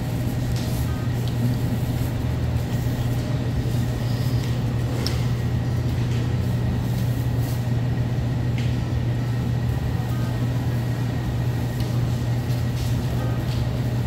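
Steady low hum of a supermarket's background machinery, such as refrigerated displays and air-conditioning, with a few faint light clicks and rustles of produce being handled.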